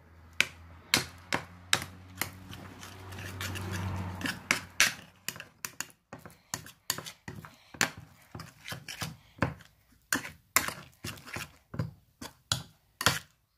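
Utensil clicking and tapping against a plate while stirring slime, in quick irregular knocks about two or three a second, with a low hum under the first few seconds.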